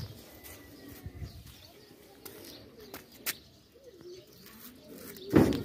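Faint bird calls with a few soft clicks, and one loud thump near the end.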